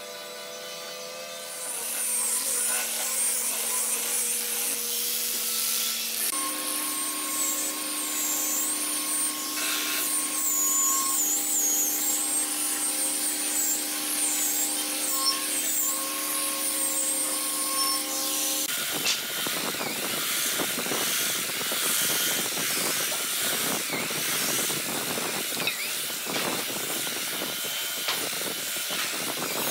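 Electric random orbital sander running on a hardwood door frame, a high motor whine that wavers as it works. About two-thirds of the way through, a handheld belt sander takes over with a denser, rougher sanding noise.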